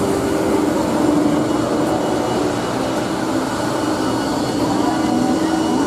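Steady mechanical drone inside the cabin of a parked C-2 transport aircraft, with a faint constant high whine over it.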